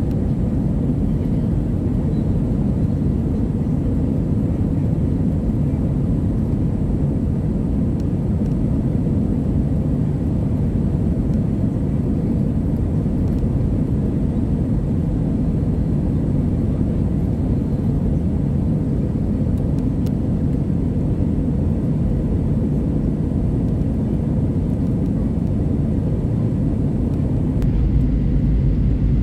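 Steady low rumble of engine and airflow noise inside an Airbus A320-200's cabin during takeoff and climb, deepening slightly near the end.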